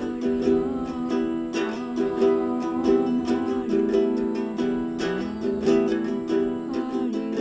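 Background music: a tune of plucked notes in a steady rhythm.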